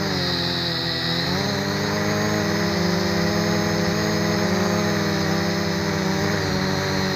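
MJX X400 V2 quadcopter's motors and propellers whirring steadily. The pitch dips just after the start and climbs back about a second and a half in as the throttle changes, then wavers slightly.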